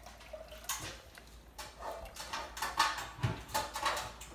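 Thick spaghetti sauce plopping from a glass jar into a pot, with knocks of the jar against the pot, the heaviest about three seconds in. A dog whines alongside.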